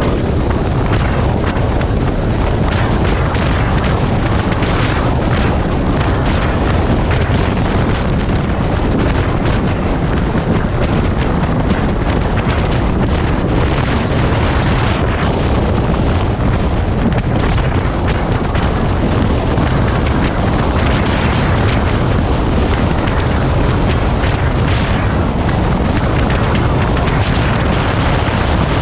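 Wind buffeting the camera microphone on a motorcycle riding at speed, a loud steady rumble with constant gusts, over the engine and tyre noise.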